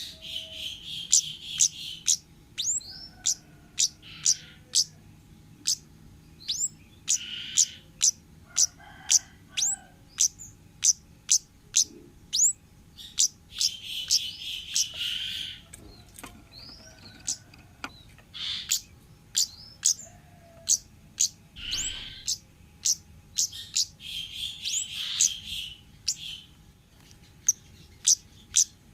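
Wild kemade birds calling: a rapid run of sharp, high 'cit' notes, each sweeping quickly downward, about one to two a second, broken by several buzzy, churring phrases lasting a second or two.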